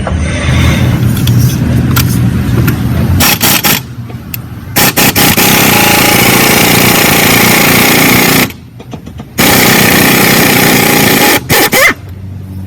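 Loud vehicle engine noise in short clips that cut in and out abruptly several times.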